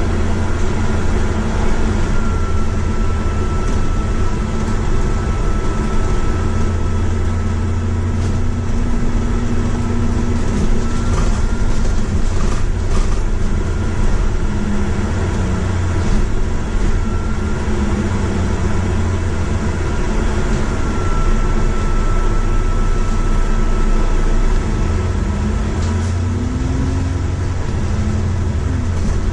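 Inside a moving double-decker bus: the engine and drivetrain make a steady low drone, with a faint high whine that comes and goes and a few rattles about halfway through.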